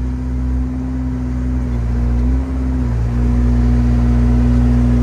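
Excavator engine running steadily under hydraulic work, its pitch shifting slightly about two to three seconds in and running a little louder after.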